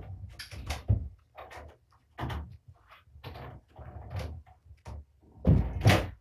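A string of short, irregular rustling and scuffling noises with no steady tone, loudest near the end.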